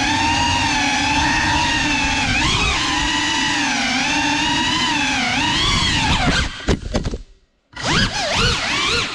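Brushless motors and ducted propellers of a GEPRC Cinelog 35 cinewhoop drone whining, the pitch rising and falling with the throttle. About six and a half seconds in, the sound breaks up and cuts out for about half a second. It then comes back with quick swoops up and down in pitch.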